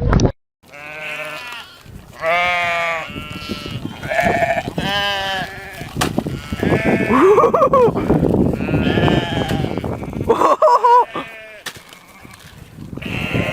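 Bleating: a series of loud calls with a wavering pitch, one after another, some rising and falling.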